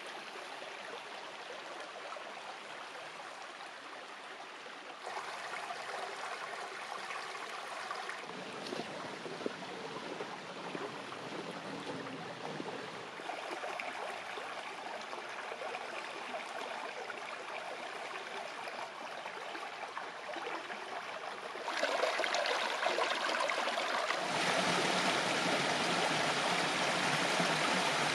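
Creek water running steadily, a continuous rush that steps up in loudness about five seconds in and again twice near the end.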